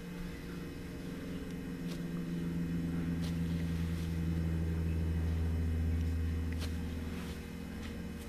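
A low, steady motor hum that grows louder over a few seconds and then fades, with a few faint clicks over it.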